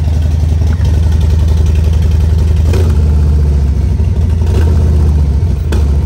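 Harley-Davidson Low Rider S V-twin engine idling steadily shortly after a cold start, running on freshly installed Screaming Eagle 10 mm spark plug wires and new plugs, and running fine.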